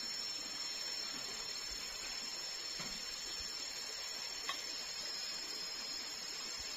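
Steady high-pitched drone of forest insects over a faint hiss, with one short click about four and a half seconds in.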